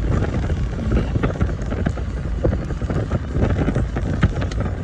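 Car cabin noise while driving: a steady low road-and-engine rumble with wind buffeting the microphone and frequent small knocks and rattles.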